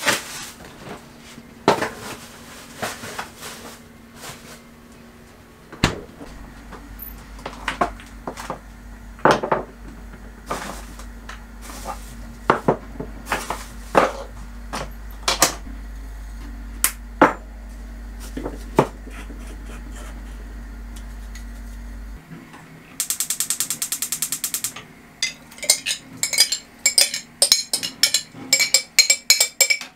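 Kitchen cooking noises: metal pans, lids, utensils and glass jars clinking and knocking on a gas hob. There is a low hum for much of the time, a quick even run of clicks about three quarters through, and a busy run of small clicks near the end.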